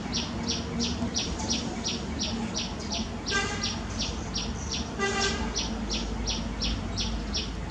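A bird calling a rapid, even series of short high chirps, about three a second, with two short toots about three and five seconds in.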